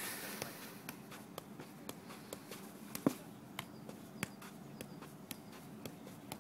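Football being kicked up again and again in keepy-ups: a short thump each time the foot strikes the ball, about every half second, the loudest about three seconds in.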